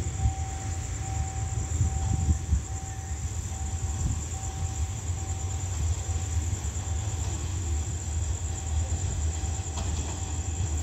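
Low, steady rumble of a distant approaching Hitachi diesel-electric locomotive heading an express train.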